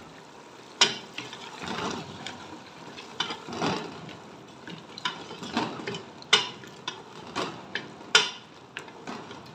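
Wooden spatula stirring mutton and chopped tomatoes as they fry in a pressure-cooker pot, scraping along the pan with several sharp knocks against the metal.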